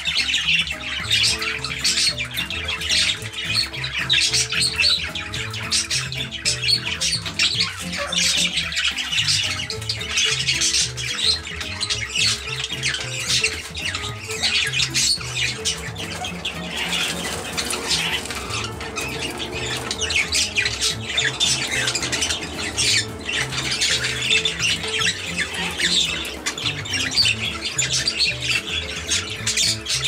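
Small parrots squawking and chattering in a rapid, steady stream, over background music with a stepping bass line.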